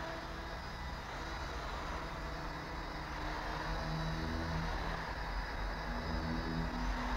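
Small quadcopter drone's propeller motors running while it moves across the water surface, their hum shifting up and down in pitch in steps as the throttle changes.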